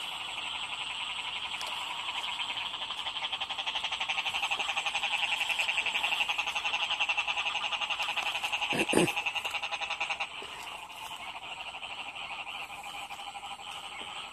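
Dense chorus of frogs calling in a wet rice field after rain, a fast, continuous pulsing trill. About nine seconds in a single short, louder, lower sound stands out, and just after that the chorus drops in level.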